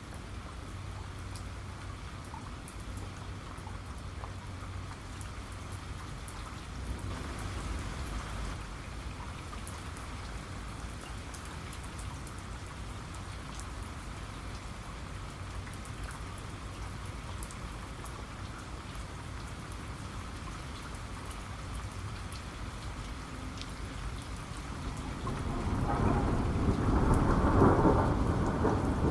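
Steady rain with scattered close drips, then a thunder rumble that swells about 25 seconds in and is the loudest thing here, carrying to the end.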